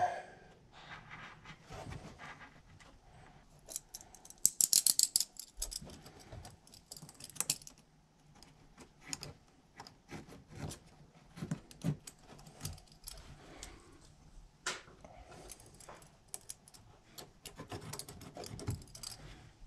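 Irregular scratching, rustling and small clicks of hands working and cutting marine carpet at a cupholder hole in a boat's gunnel, with a louder, hissy rasping scrape from about four to seven and a half seconds in.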